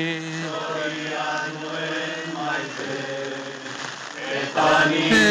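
Slow singing of a Basque song, the voice drawing out long held notes between lines, growing louder again near the end.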